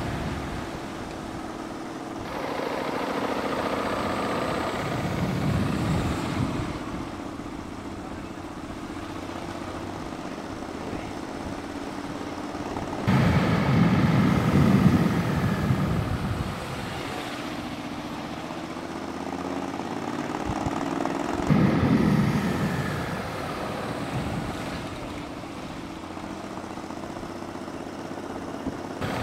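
A motor vehicle's engine running at road speed, with wind noise over it. It swells louder for a few seconds about halfway through and again later on, and its character changes abruptly a few times.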